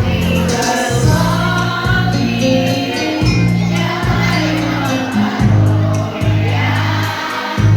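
A choir singing over an instrumental accompaniment, with a strong bass line that changes note about once a second.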